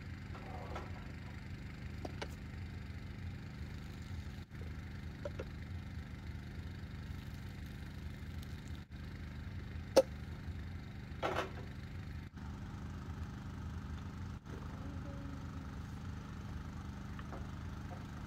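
Light clinks and clatters of a cooking pot and its lid, the sharpest clink about ten seconds in, over a steady low hum.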